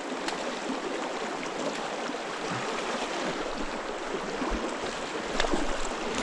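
A river's flowing water rushing steadily, an even wash of noise.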